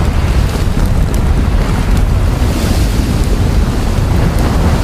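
Mount Etna erupting in a lava fountain: a continuous loud, deep rumbling noise with no breaks, heaviest in the low end.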